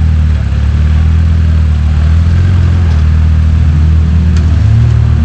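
Rock-crawling buggy's engine running steadily with a deep low rumble as the buggy climbs a boulder, the note rising briefly near the end.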